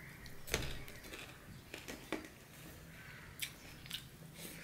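Close-up chewing of a mouthful of rice and greens eaten by hand, with a series of short wet mouth clicks and lip smacks, the sharpest about half a second in.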